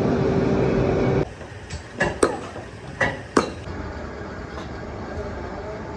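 Steady loud foundry noise that cuts off about a second in, then a metal pan scooping moulding sand, with four sharp metallic scrapes and clanks over a quieter steady background.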